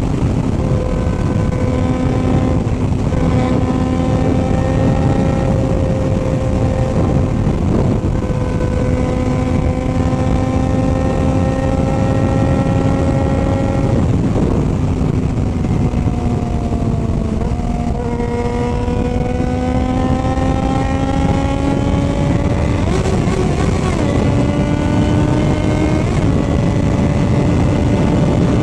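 Motorcycle engine running under way, its note slowly climbing, easing off for a few seconds about halfway through, then climbing again, over a constant rushing noise.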